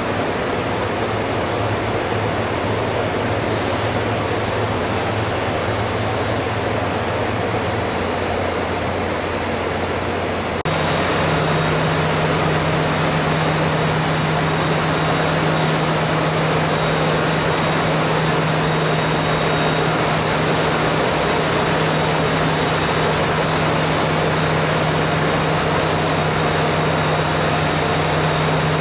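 Steady mechanical hum and rushing noise of rail-workshop machinery, with a low steady tone. About eleven seconds in it cuts abruptly to a slightly louder hum with a higher steady tone.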